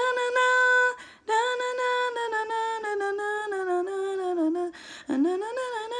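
A woman's voice humming a cappella without words: long held notes in three phrases, breaking about a second in and again near the end, voicing the song's guitar intro.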